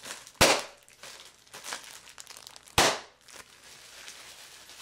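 Large air-pillow bubble wrap, bubbles about 8 by 3 inches, squeezed by hand until it bursts with a loud pop: twice, about half a second in and again a little under three seconds in, with plastic crinkling between.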